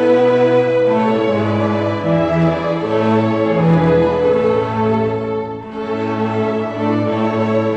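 String orchestra of violins, violas, cellos and double bass playing a slow passage of long held notes over a sustained low bass line, softening briefly about two-thirds of the way through.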